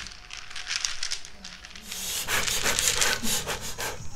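Rapid dry rustling strokes in two spells, the second starting about two seconds in.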